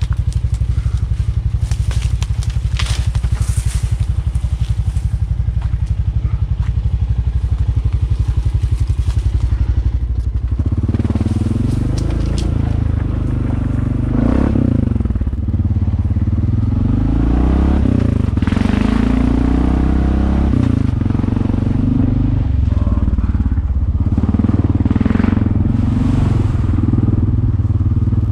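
Honda ATV engine running on a trail ride. It holds steady at first, then from about ten seconds in its pitch rises and falls with the throttle, with bursts of crackling and scraping over it.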